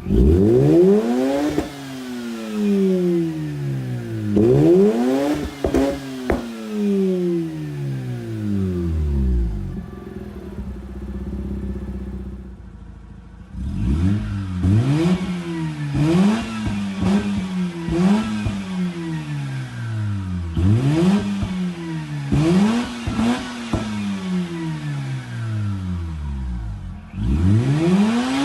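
Mazda RX-8's two-rotor rotary engine revved through a Cobra Sport cat-back exhaust with stock cat, header and intake. There are two long revs that rise and fall, a few seconds of settling near idle, then a quick run of about eight throttle blips, and one more rev near the end.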